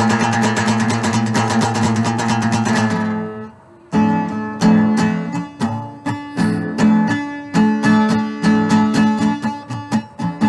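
Wood-bodied resonator guitar strummed fast and evenly. The chord dies away about three seconds in, there is a brief gap, and the strumming starts again about a second later in an accented rhythmic pattern.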